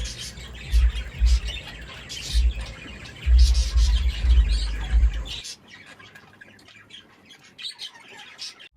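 Budgerigars chirping and chattering, many short calls one after another. Low rumbling thumps sit under them for the first five seconds or so, then the rumbling stops and the chirping goes on more faintly.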